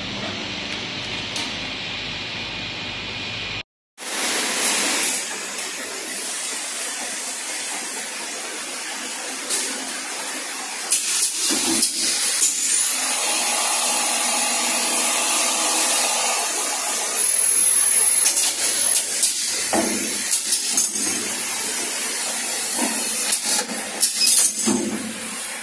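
Automatic bottle labelling and filling line machinery running. First comes a steady machine hum from the labeller conveyor. After a brief break there is a multi-head piston filling machine's steady hissing run with scattered clicks and knocks, which grow louder and more frequent in the second half.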